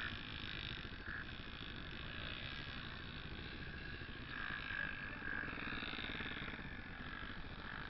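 Off-road motorcycle engine running steadily with a low, even putter.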